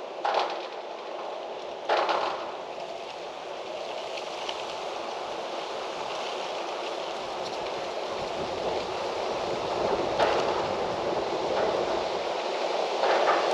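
Wind blowing steadily through trees, building slowly, with a few short sharp knocks or clicks now and then.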